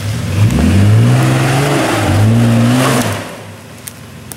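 Ford Explorer's engine revving twice under load as it climbs over trail rocks, the pitch rising with each surge. The engine drops back to a low idle about three seconds in.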